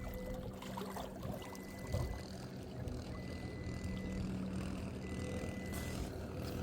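Boat motor running steadily with a low hum, while a faint high beep sounds for about a second every couple of seconds. A small knock comes about two seconds in.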